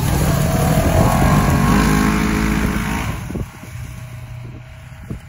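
Ranger side-by-side utility vehicle's engine revving up as it pulls away, then dropping to a quieter steady drone about three seconds in as it moves off across the field.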